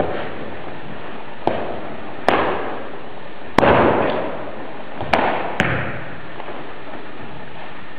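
Five sharp cracks from a praying mantis boxer's forceful moves during the form, each with a ringing echo off a large hall, the last two close together. A steady hiss sits under them.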